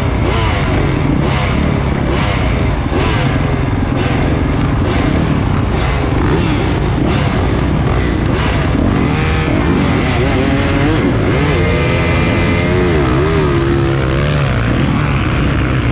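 Motocross bike engines in the 450 cc class, heard from a camera mounted on the bike, running and revving, with the pitch repeatedly rising and falling.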